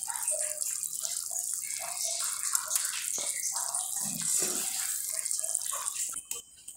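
Beef curry bubbling and sizzling as it boils in the juices released by the marinated meat, with many small pops over a steady hiss; it cuts off about six seconds in.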